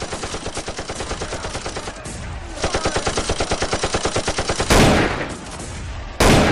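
Machine-gun fire in two long, rapid bursts, then two louder single bangs about a second and a half apart near the end.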